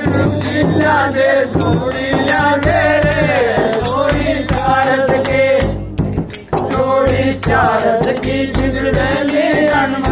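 Group of men singing a Holi phag dhamaal folk song, accompanied by a large hand-played frame drum (chang) keeping the rhythm. The singing pauses briefly about six seconds in.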